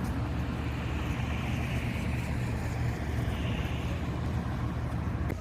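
A motor engine running steadily with a deep, even hum, cutting off suddenly near the end.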